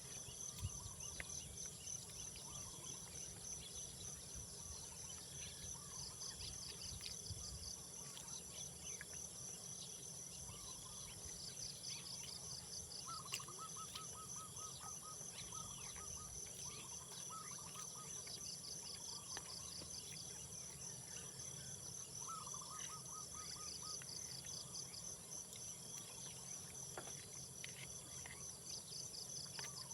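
Outdoor insect chorus: a steady, high-pitched shrilling with trilling bursts that come and go every few seconds, and scattered bird chirps. Twice a short run of rapid pulsed calls stands out.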